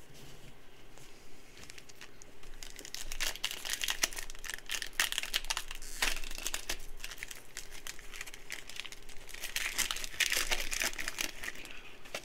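Foil wrapper of a Panini Prizm football card pack crinkling and tearing in the hands as it is opened, in two bouts of dense crackling, with a sharp crack about six seconds in.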